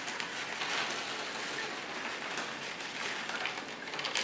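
Sand poured from a packet into a small tank of water, a steady grainy hiss.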